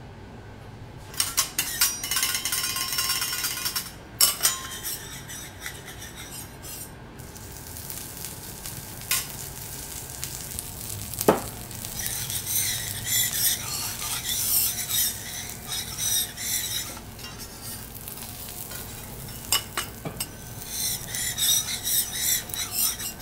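Whole green onions sizzling on a hot teppanyaki steel griddle, in several bursts of hiss, with a few sharp metallic clicks from the chef's spatulas, the loudest about eleven seconds in.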